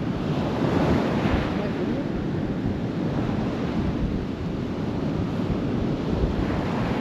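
Atlantic ocean surf breaking and washing on the beach, swelling about a second in and again near the end, with wind buffeting the microphone.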